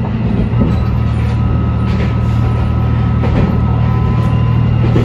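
Moka Railway diesel railcar running along single track, heard from inside the car: a steady engine drone with a few light clicks from the wheels over the rail joints.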